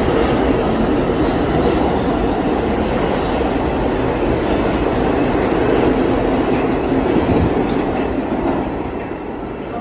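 R142 subway train pulling out of an underground station, a steady rumble of wheels on rail with a rhythmic clatter over the rail joints. The noise fades as the last car leaves, about eight seconds in.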